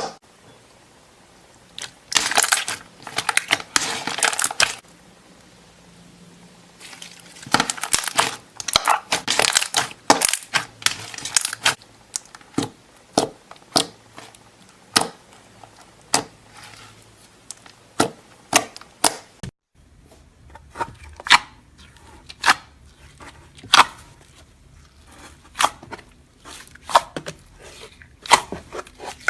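Slime being squeezed and poked by hand. It gives two spells of dense crackling, then a run of separate sharp clicks and pops.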